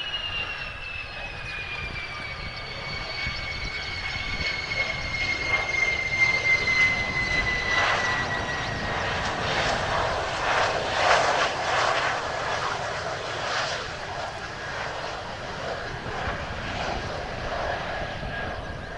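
Mitsubishi F-2 fighter's single F110 turbofan engine on landing: a high whine falls steadily in pitch over the first several seconds. A louder rush of jet noise then builds and peaks around ten seconds in as the jet rolls past on the runway.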